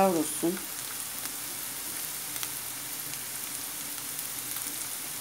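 Onions, green peppers and tomato paste sizzling steadily in oil in a frying pan, with scattered faint crackles.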